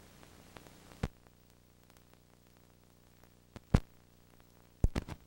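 Steady hiss and a low electrical hum, broken by sharp thumps: one about a second in, another a little before four seconds, and a quick run of three near the end.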